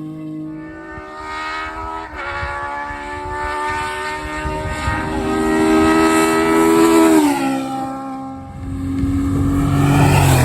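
A rally car's engine running hard past the spectator, its pitch climbing as it approaches, then dropping about seven seconds in as the car goes by and fades. Engine sound swells again near the end.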